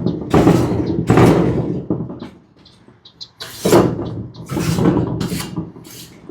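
Brush sweeping dry dirt off metal roofing panels in repeated hissing strokes, each half a second to a second long, with a pause of a second or so in the middle. Faint bird chirps between the strokes.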